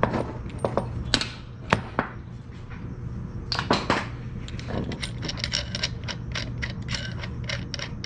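Light metallic clicks and knocks from hand work on suspension parts and tools. A few separate knocks come first, then a quick run of rapid clicks starts about five seconds in.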